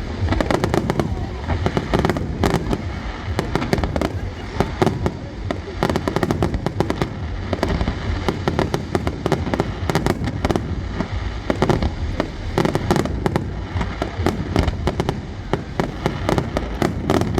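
Fireworks display: a dense, continuous run of bangs and crackling bursts, many per second, over a steady low rumble.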